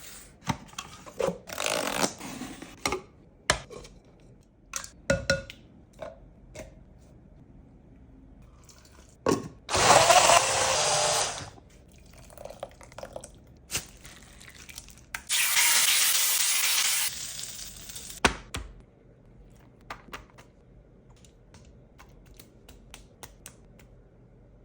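Kitchen food-preparation sounds: scattered knocks and clatter of utensils and dishes, with three bursts of steady rushing noise lasting one to two seconds each, the loudest about ten seconds in.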